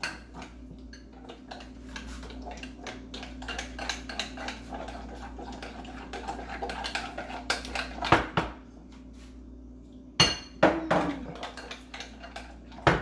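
Batter being beaten in a glass bowl: rapid, continuous clinking of a utensil against the glass, with a few louder knocks about eight and ten seconds in.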